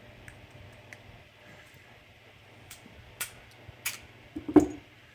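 Small metal clicks and taps from a Mul-T-Lock Interactive padlock being taken apart by hand. A few sharp clicks come about three seconds in, then a louder knock near the end.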